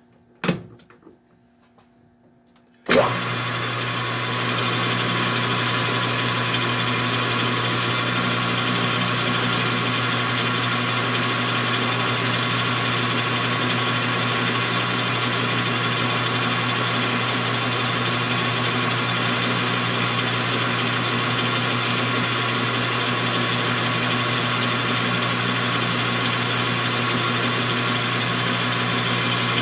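Metal lathe starting up about three seconds in and running steadily at about 600 rpm, a constant machine hum with a steady whine, while a parting blade cuts a pin off steel bar stock under brushed-on cutting oil.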